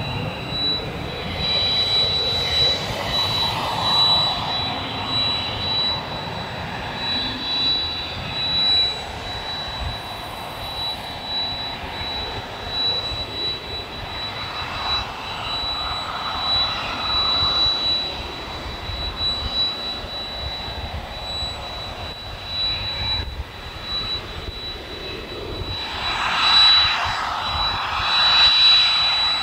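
Jet engines of an IAI Westwind business jet at takeoff power through its takeoff roll and liftoff: a steady jet rush with a thin high whine. Near the end a louder jet rush swells up.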